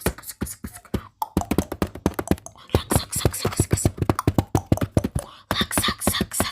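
Fingertips tapping rapidly on a camera, close to its microphone: quick, irregular taps several a second, with brief pauses.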